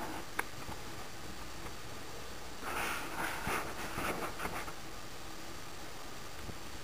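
A wooden-geared electromechanical pendulum clock ticking, with a single sharp click about half a second in and a stretch of rustling and clicks about three seconds in, over a steady hiss.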